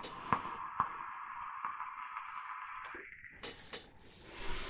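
A draw on the MSM Tech Phoebe dual-coil RDA with only its bottom airflow open. There is a steady airy hiss of air pulled past the firing coils for about three seconds, with a few faint clicks in it; the speaker calls this airflow a little more turbulent. The hiss then stops and is followed by a softer breath out.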